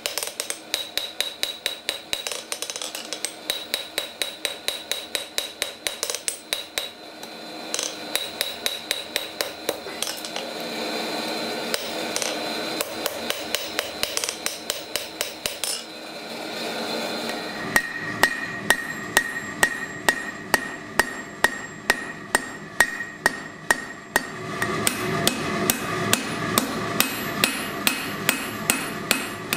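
Hand hammer forging red-hot steel on an anvil: a long run of even blows, about two to three a second, each one ringing off the anvil. The blows pause briefly a little past halfway, then carry on at the same pace.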